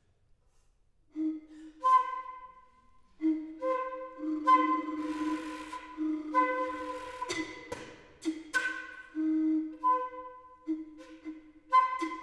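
Flute and marimba playing a contemporary duet: after about a second of near silence, held low flute notes begin, broken up by short struck marimba notes that ring and fade, several in a quick cluster near the middle and again near the end.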